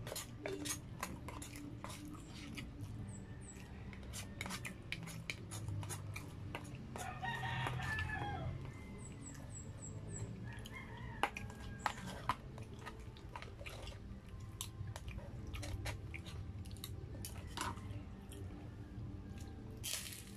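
Close-miked eating: a black plastic fork and spoon clicking and scraping in a paper food box, then biting and chewing, over a low steady hum. A drawn-out call sounds once in the background about seven seconds in.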